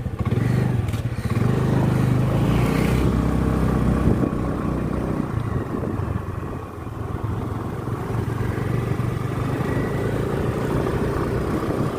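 Motorcycle engine running steadily while riding along, its note easing slightly about halfway through.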